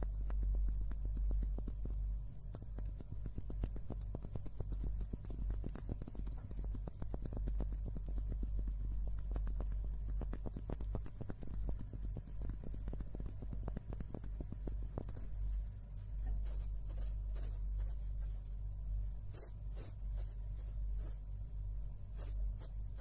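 Fingers scratching and rubbing on two plain wooden blocks held close to the microphones, a dense run of fine, rapid scratchy strokes over a steady low hum. Sharper, higher scratches come in over the last several seconds.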